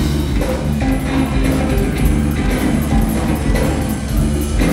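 Latin funk-rock band music with a steady drum-kit beat and electric guitar over bass.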